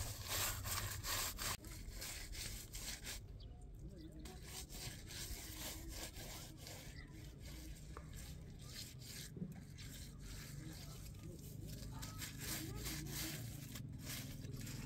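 Hands rubbing and smoothing wet mud over a foil-wrapped parcel. A run of quick scraping strokes fills the first few seconds, then the handling goes fainter and sparser, and the strokes pick up again near the end.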